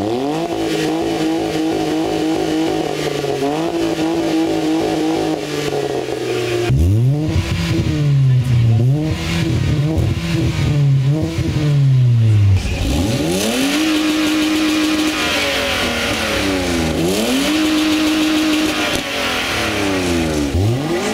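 Cars revving their engines one after another in a rev contest. First a smart fortwo held at steady high revs. About six seconds in comes a Kia Forte Koup with quick repeated blips. From about halfway a BMW 635CSi straight-six is held at high revs, dropping back and rising again.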